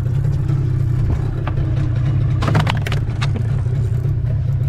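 A boat's engine running steadily with a low drone. A quick cluster of clattering knocks comes about two and a half seconds in.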